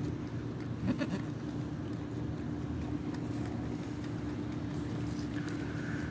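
Steady low machine hum with a constant tone running underneath, with a brief faint sound about a second in.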